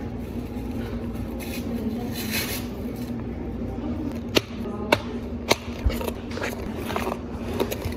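Whipped cream dispenser hissing briefly as cream is piped onto a cup of bubble tea, then a run of sharp plastic clicks as clear dome lids are pressed onto the cups. A steady machine hum sits underneath.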